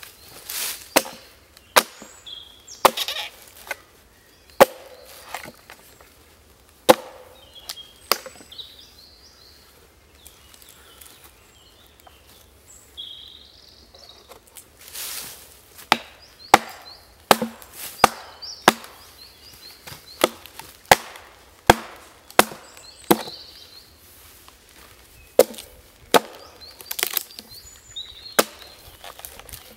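Axe chopping notches into a log: sharp wooden strikes, a handful spaced irregularly at first, a pause of several seconds in the middle, then a steady run of strikes about once a second.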